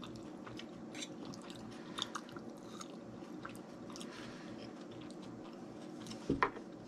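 A person chewing escargot, with many small wet mouth clicks over a faint steady hum. There is a louder knock about six seconds in.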